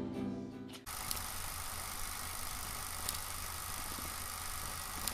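Acoustic guitar music cuts off less than a second in. It gives way to a steady background hiss with a few faint clicks.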